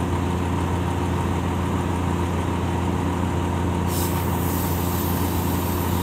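Steady drone of idling engines and pressure-washing units. About four seconds in, a steady hiss of spray starts as wash-wax soap is sprayed onto a concrete mixer truck's cab.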